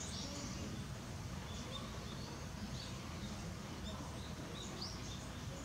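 Small birds chirping now and then, in short high notes, over a steady low background rumble.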